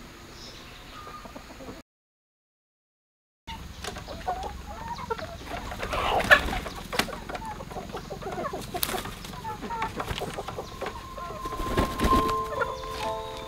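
Chickens clucking, with a few sharp knocks among them, after a brief dead-silent gap near the start. Music comes in near the end.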